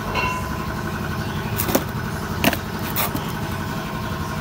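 Steady low mechanical hum, with a few short sharp knocks and taps as the cardboard shock-absorber boxes are handled.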